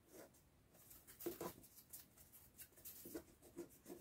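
Faint, scattered rustling and light scuffing of a foam strip being handled and bent against a foam helmet.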